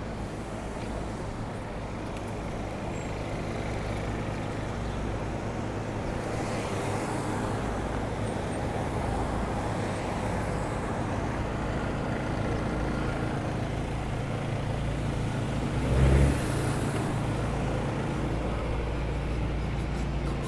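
Steady city street traffic with a low engine rumble from passing and idling vehicles, and one short loud thump about three-quarters of the way through.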